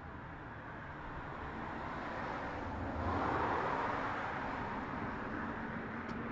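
A car passing on the street: tyre and engine noise swells to its loudest about three seconds in, then fades back to a traffic hum.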